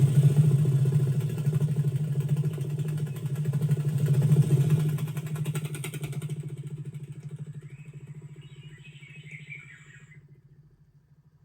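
A low, steady buzzing drone that gradually fades away over about ten seconds, with a brief faint higher fluttering near the end.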